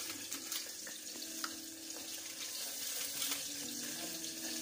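A steady hiss with a few light clicks as fried fish are picked off a metal tray onto a plate.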